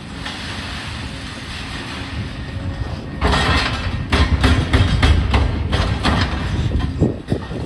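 Demolition excavators running. From about three seconds in, a heavy rumble with a rapid series of crashes and clattering as concrete and metal debris is pulled down and falls.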